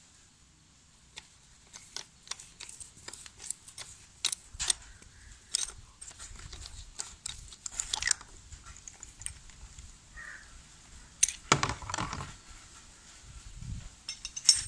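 Socket wrench working the 24 mm oil strainer cap off a Honda CG125 crankcase: a run of irregular metal clicks and clinks as the cap is turned loose, then a heavier knock about 11 seconds in.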